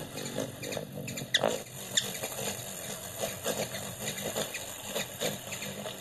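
Anna's hummingbird calling: a rapid run of short chips and squeaks, with a few sharp, high notes sliding downward standing out, about one and a half and two seconds in.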